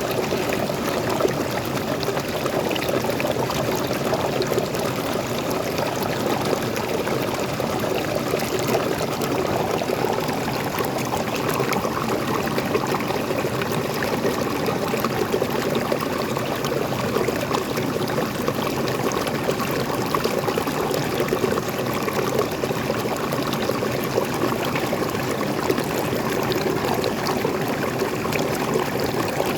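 Small forest waterfall and stream: water pouring and splashing steadily, a continuous rushing noise that holds even throughout.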